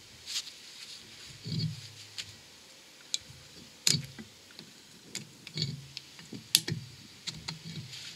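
Small screwdriver prying a bearing circlip out of its groove in a steel wheel hub carrier: scattered sharp metallic clicks and scrapes, the loudest about four seconds in and again a little past six, with duller handling noises between.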